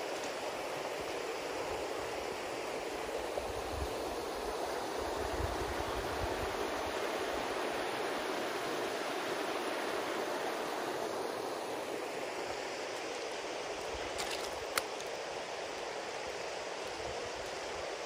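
A rocky mountain river rushing steadily over stones. A single sharp click comes about fifteen seconds in.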